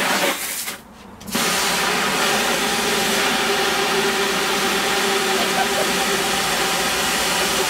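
Garden hose running water into a plastic tub: a short burst, a brief break, then a steady hiss with a faint steady tone through it for several seconds, cutting off abruptly near the end.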